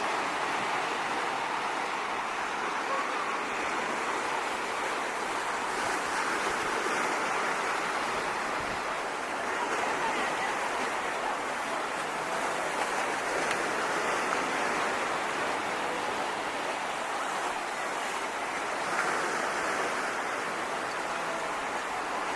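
Sea waves washing in the dark, a steady rushing hiss that swells gently now and then.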